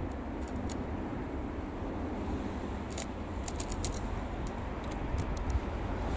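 A low rumble with wind buffeting the microphone, and a run of small sharp clicks about three to four seconds in.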